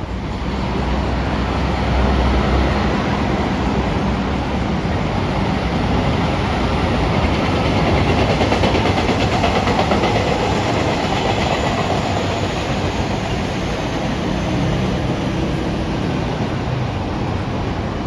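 A train running past on the rails, wheels clattering over rail joints; the noise swells over the first couple of seconds and then holds steady.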